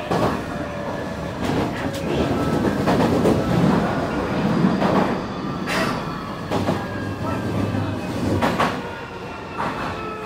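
Running sound of a Semboku 9300 series electric train with a Hitachi SiC-VVVF inverter, heard inside the car. A steady rumble carries thin motor whine tones that slowly rise in pitch through the second half, and the wheels give irregular sharp clacks over rail joints and points.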